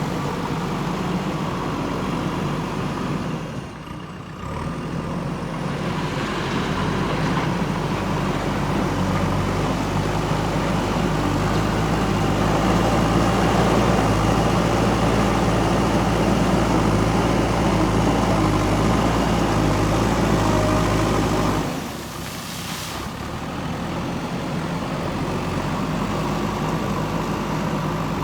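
JCB backhoe loader's diesel engine running under working load, with a steady, low engine note. The level drops back sharply twice, once a few seconds in and again about three-quarters of the way through, and is loudest in between.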